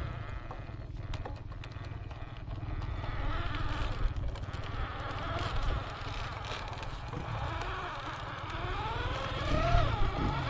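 Electric drive motor and gearbox of an RGT EX86190 radio-controlled 4x4 off-road truck whining, the pitch rising and falling with the throttle, with the clearest rising whines near the end. Scattered short clicks and knocks sound over a low rumble.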